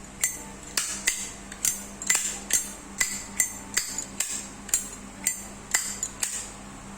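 Zippo windproof lighter lids flicked open and snapped shut over and over, about two or three sharp metal clicks a second, each with a short high ring. This is the Zippo's characteristic click and ring, listened to here as a check that the lighters are genuine.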